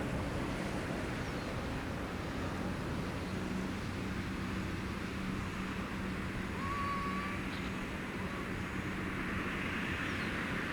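Steady background rumble and hiss with a faint low hum, and a brief high tone about seven seconds in.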